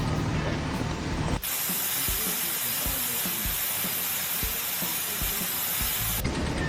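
A low, steady engine hum that cuts abruptly, about a second and a half in, to a loud, even hiss with a few soft low thumps. The hum returns near the end.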